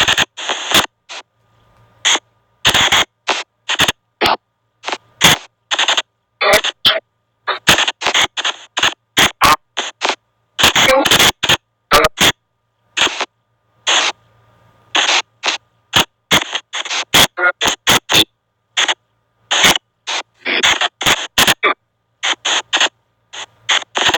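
Spirit box app on an Android phone playing chopped fragments of voice-like sound and noise, switched on and off in quick irregular bursts with brief silent gaps between.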